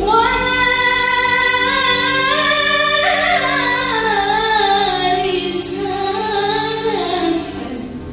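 A girl singing one long, ornamented phrase over instrumental accompaniment: she comes in strongly at once, holds and bends long notes that drift downward, and lets the phrase fall away about seven and a half seconds in.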